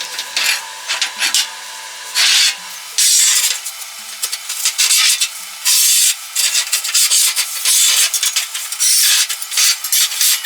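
Abrasive rubbing by hand: harsh, scratchy strokes that come unevenly, about one or two a second.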